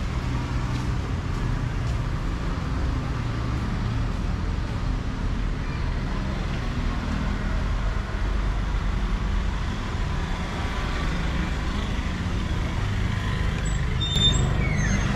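Steady road-traffic rumble from the street below. Near the end there are a few short high tones as a glass shop door is pulled open.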